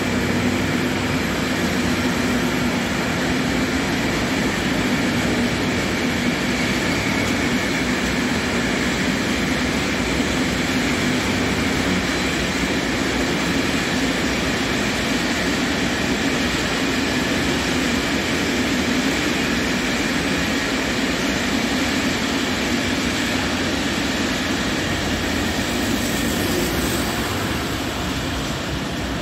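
Freight train of flat wagons hauled by an E.652 electric locomotive rolling past: steady wheel-on-rail noise, easing off slightly near the end.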